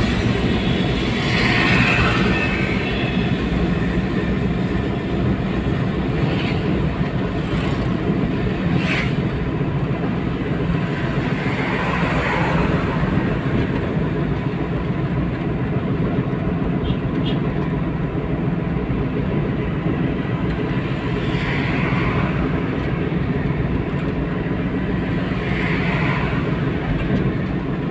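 Steady rumble of a car's engine and tyres on the road, heard from inside the moving car's cabin, with a few brief swells of louder noise.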